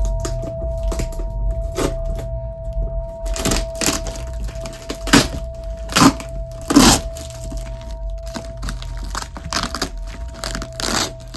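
A run of irregular sharp clicks and cracks, the loudest about five, six and seven seconds in, over a steady low hum and a held tone.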